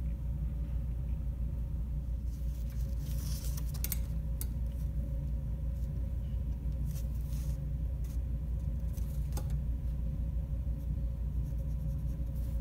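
Steady low background hum with a faint steady tone above it, and a few soft rustles and clicks from a cloth tape measure and marker pen being handled on a metal stirrup and paper.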